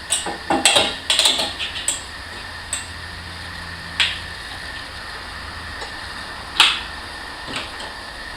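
Hand tools and metal parts clicking and knocking as a car's battery and its fittings are undone and lifted out. It starts with a quick run of clicks and clanks, then single sharp knocks every second or two, the loudest about six and a half seconds in.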